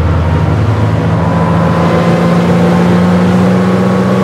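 Mercury outboard motor running hard as the boat speeds across the water, its steady drone edging slightly up in pitch, over a constant rushing hiss.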